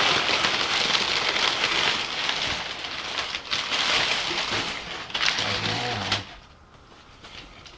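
Shipping packaging being handled and opened, crinkling and rustling with small crackles, stopping about six seconds in.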